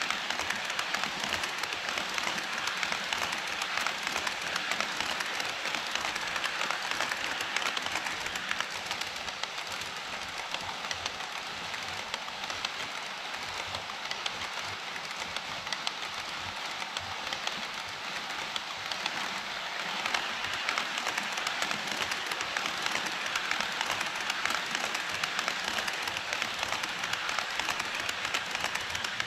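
HO scale model train running on KATO Unitrack, a continuous fine rattle of metal wheels on the rails. It grows louder at the start and again from about two-thirds through, as the train passes close.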